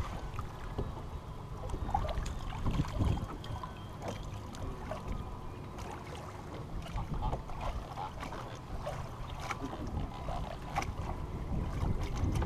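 Wind rumbling on the microphone over choppy lake water lapping at a small boat, with scattered light clicks and knocks from the hull and fishing line being handled.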